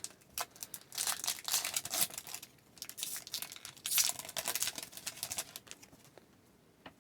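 Plastic wrapper of a trading-card pack being torn open and crinkled, in two spells of crackling with a few small clicks between.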